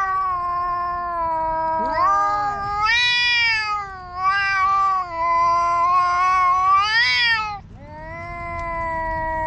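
Two cats yowling at each other in long, drawn-out, wavering howls that overlap at times, with a brief break near the end before another long yowl starts. It is a threat standoff between the cats, a loud quarrel of voices.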